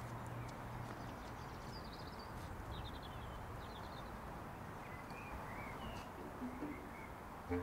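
Outdoor park ambience: a steady background hiss with small birds chirping briefly now and then.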